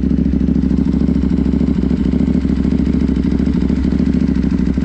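KTM 790 Duke's parallel-twin engine idling steadily through an Arrow GP2 exhaust with the catalytic converter removed.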